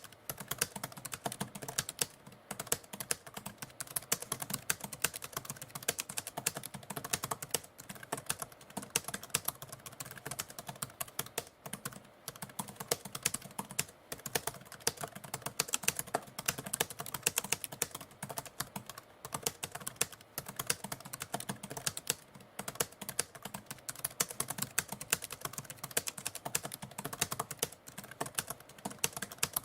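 Typewriter keys being struck in fast, continuous typing: a dense run of sharp clacks broken by a few brief pauses.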